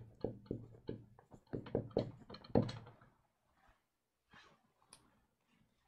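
Dry-erase marker writing on a whiteboard: a quick, uneven run of short taps and scratches of the felt tip against the board, stopping about three seconds in, followed by a couple of faint ticks.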